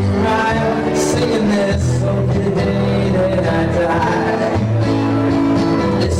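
Country-style music with singing and guitar, playing steadily without a break.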